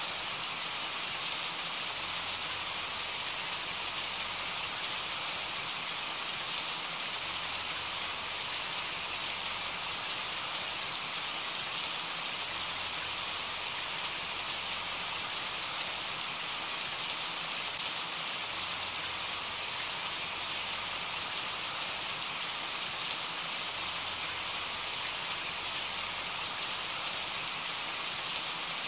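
Steady rain falling: a continuous even hiss with the odd louder drop ticking through it.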